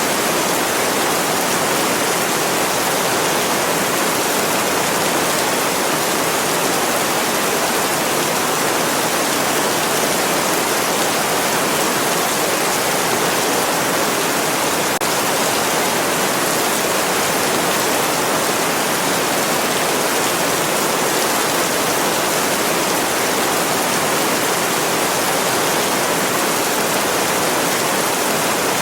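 Steady, continuous heavy rain: an even hiss with no single drops or other sounds standing out.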